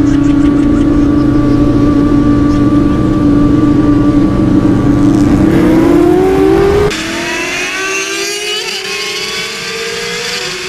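Yamaha sportbike engine running at high, steady revs under the rider. About five and a half seconds in its pitch sweeps up as it accelerates. After an abrupt change about seven seconds in, a quieter engine note climbs steadily in pitch as a vehicle accelerates.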